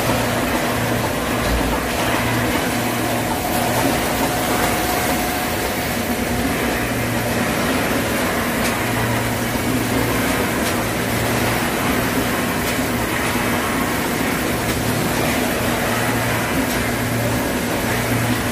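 Automatic pancake counting and pouch-packing machinery running: a steady mechanical hum, with a low drone that cuts in and out every second or two and a few faint clicks.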